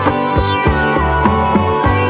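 Background music with a steady beat, about three beats a second, over sustained pitched tones.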